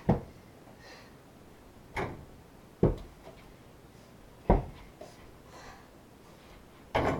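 A small toy ball bouncing off the door and floor: about five separate dull thuds, spaced irregularly a second or two apart.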